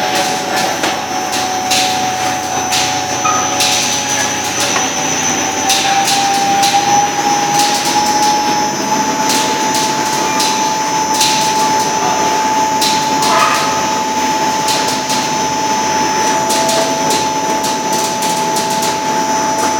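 Spiral duct forming machine running with a steady whine that rises a little in pitch a few seconds in, over a mechanical hum, with scattered metallic clicks and knocks throughout.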